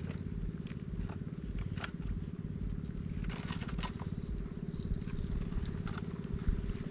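A small engine running steadily at an even speed, with a few faint light clicks over it.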